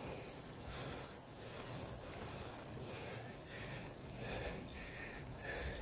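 A cyclist breathing hard and rhythmically while pedalling up a steep climb, a loud huff on each breath.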